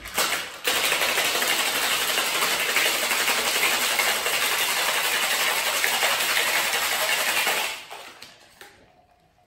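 Ice rattling inside a metal tin-on-tin cocktail shaker being shaken hard, a loud, dense, fast rattle for about seven seconds that dies away near the end.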